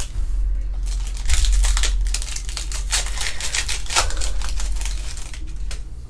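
A trading-card pack being opened and handled: the wrapper crinkling and the cards rustling and clicking in a quick run of crackles for several seconds.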